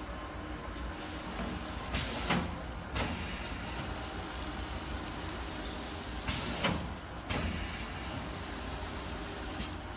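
Texwrap 2410ISS intermittent-motion side seal shrink wrapper cycling over a steady machine hum. Twice, about four seconds apart, a burst of hissing air with a knock lasts about a second.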